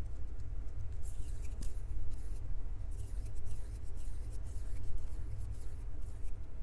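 Hands gripping and rubbing a Tascam recorder's microphones up close: spells of crisp scratching and rustling begin about a second in and stop near the end, over a steady low rumble.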